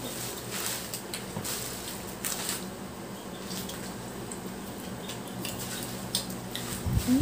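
Seafood-boil shells being cracked and picked apart by hand: scattered small clicks and cracks with wet, squishy sounds of sauce-covered crab and shrimp.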